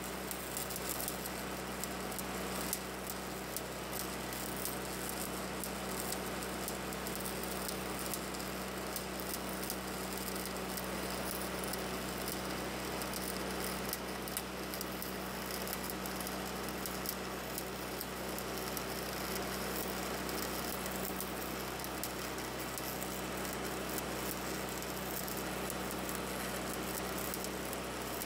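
Stick welding arc burning steadily, a continuous frying crackle as the electrode runs a bead on the truck frame bracket, over a low steady hum.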